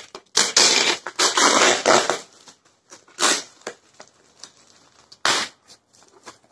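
White foam packing wrap being pulled and torn off a boxed telescope, crinkling and ripping. A long burst of tearing comes in the first two seconds, then shorter rips about three and five seconds in.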